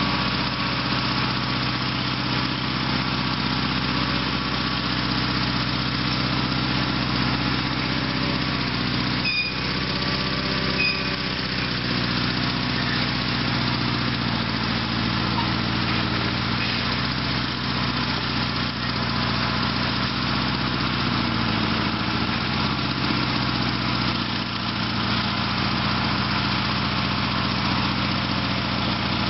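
Sears SS/16 garden tractor's Onan twin-cylinder engine running steadily as the tractor drives its dozer blade back and forth over dirt, with a single brief knock about nine seconds in.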